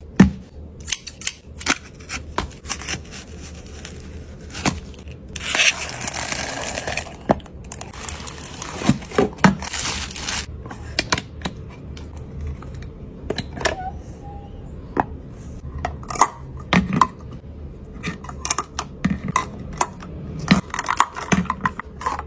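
Hard plastic clicks and knocks as an acrylic lipstick holder is handled and lipstick tubes are set into its compartments. Two longer stretches of hissing noise, each a second or two long, come about six and nine seconds in.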